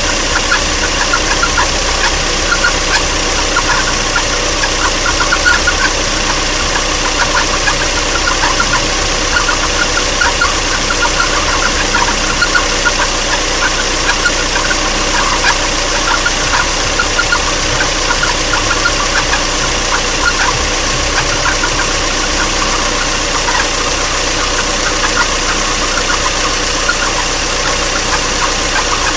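Mazda Roadster (NB) four-cylinder engine running steadily at idle, with irregular ticking or rattling over it: the abnormal noise the owner is troubled by.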